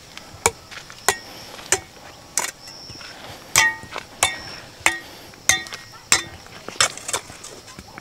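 Metal hoes striking stony earth: a dozen or so sharp chinks and knocks at an uneven pace, several ringing briefly as the blades hit stones.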